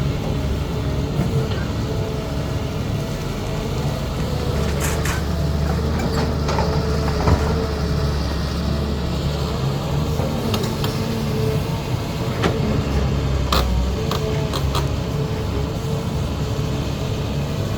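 CAT 320D hydraulic excavator's diesel engine running steadily under working load, with several sharp clanks of the bucket and rock spread through the middle.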